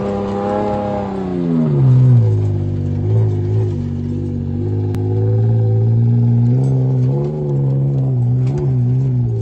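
Toyota Tacoma pickup's engine revving hard under load as it climbs a loose sand hill; the pitch falls about two seconds in, then holds lower, wavering up and down.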